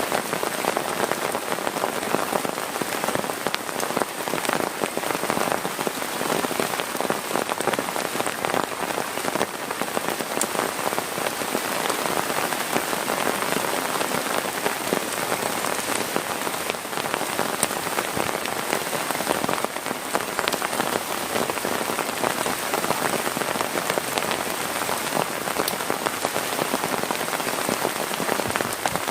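Heavy rain falling steadily, a dense, even patter of countless drops striking surfaces.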